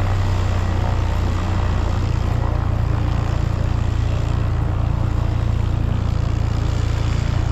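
A motor drones steadily and low throughout, over a constant rush of wind and water noise.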